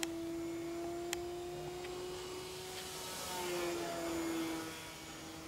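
Radio-controlled model airplane's motor and propeller giving a steady one-pitch drone in flight, growing somewhat louder with a small shift in pitch about three to four seconds in as it passes.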